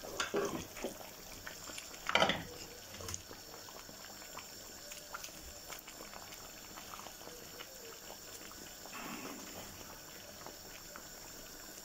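A pot of soup boiling on a gas stove, a steady bubbling, with a few brief louder sounds in the first two or three seconds.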